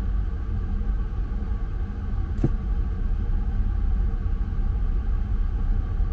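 Steady low rumble of the Dawson City ferry's engines and thrusters holding the loaded ferry against the landing, with a single sharp click about two and a half seconds in.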